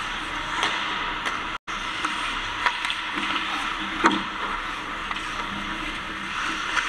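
Ice hockey play: a steady wash of skates scraping the ice and rink noise, broken by sharp stick-and-puck clacks, the loudest about four seconds in during a scramble at the goal. The audio drops out for an instant about a second and a half in.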